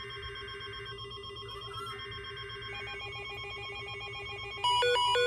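Emergency Alert System-style electronic alarm tones: a steady high tone over a fast-pulsing low beep, with a second pulsing tone joining about halfway through. Near the end a louder beeping that alternates between two pitches starts suddenly.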